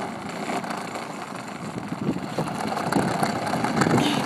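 Battery-powered ride-on toy ATV driving over asphalt: its electric drive motor whirring and hard plastic wheels rolling, getting louder toward the end.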